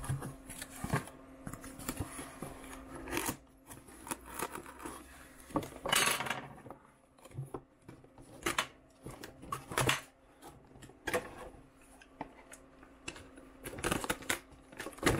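Unboxing sounds: a cardboard box and packaging being handled, with scattered clicks and taps and a brief rustling swish about six seconds in.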